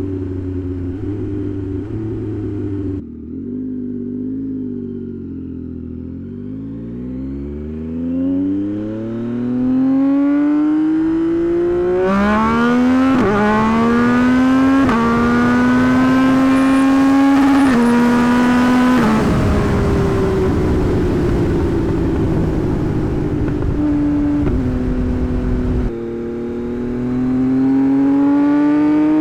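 Tuned 2024 Yamaha MT-09's 890 cc inline-three engine accelerating hard through the gears, its pitch climbing and stepping down at each upshift. It then rolls off with the pitch slowly sinking under heavy wind noise, and near the end drops a step and climbs again under acceleration.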